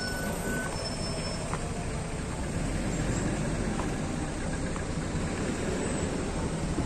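Steady rumble of vehicle engines running at low speed, with road and traffic noise.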